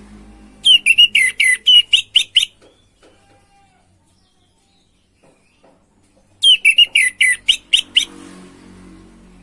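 Orange-headed thrush (anis merah) singing loudly: two bursts of rapid, varied high whistled notes, each about two seconds long, the second coming some four seconds after the first. It is a bird in full song after its moult.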